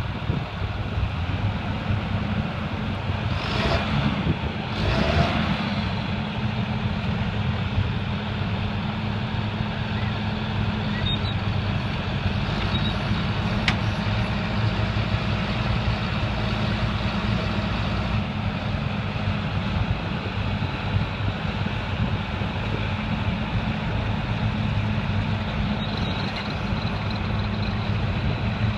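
A vehicle engine running steadily, with two brief rushing surges of noise about four and five seconds in.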